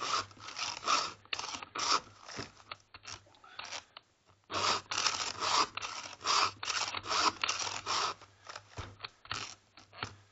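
Metal files of a Stihl chainsaw file guide rasping across the cutter teeth and rakers of a chainsaw chain in quick repeated push strokes, several a second. The strokes thin out for a couple of seconds about two seconds in, then carry on.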